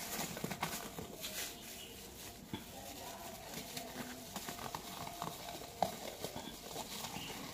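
Ripe jackfruit bulbs being pulled by a plastic-gloved hand from the fruit's sticky fibres: faint, irregular small clicks and soft wet tearing.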